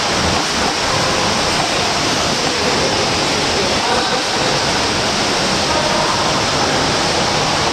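Steady rushing water noise of swimmers splashing at front crawl in a swimming pool, with indistinct voices underneath.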